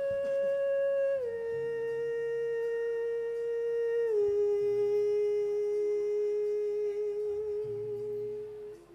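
A sustained hummed vocal note played back from a live voice-looping setup, stepping down in pitch twice and wavering slightly near the end before it stops.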